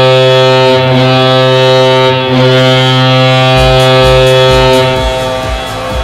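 Colorado Avalanche hockey goal horn sounding a loud, low, steady tone, with two short breaks. About three and a half seconds in, the goal song's heavy beat comes in under it, and the horn fades out about a second before the end, leaving the music.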